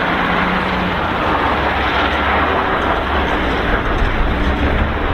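Heavy Shacman dump truck driving on a quarry dirt road: a steady low engine rumble under an even wash of noise.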